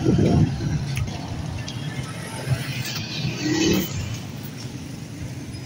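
Street traffic: motor vehicles running and passing on a town street, with a louder pass about three to four seconds in.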